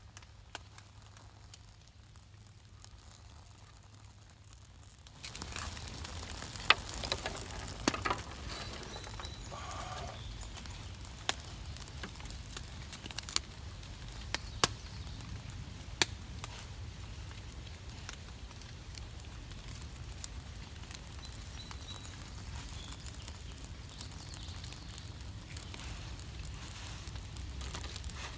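Small fire of quick tinder and thin twigs burning, with scattered sharp snaps and clicks as twigs are laid on and catch. A steady hiss comes in about five seconds in.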